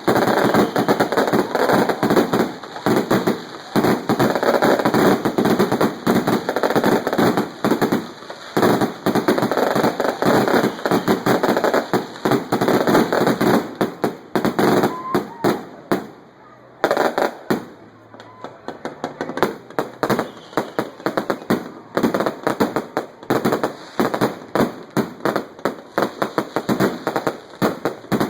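A long string of firecrackers going off in rapid, crackling pops. The pops break off briefly about sixteen seconds in, then start again, a little more spaced out.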